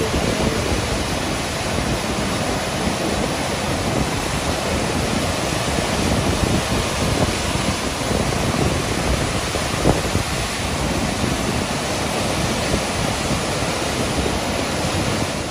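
A waterfall rushing steadily, a dense, even wash of falling and churning water. One brief click about ten seconds in.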